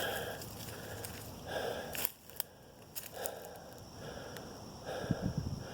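Soft, slow breathing, about one breath every second and a half, after a climb up a steep hill, with a faint click and rustle.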